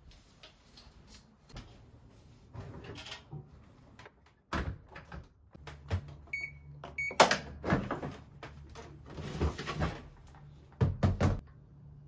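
Curtain fabric and hooks rustling and clicking on a rail, then a front-loading drum washing machine's control panel giving a few short electronic beeps as its buttons are pressed, with a sharp plastic clack right after and a quick run of knocks near the end as the machine is handled.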